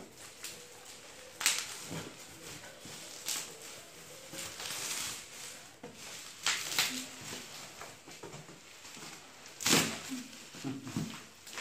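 Bubble wrap and plastic packaging crinkling and rustling as it is pulled out of a cardboard box, with a few sharp crackles spread through.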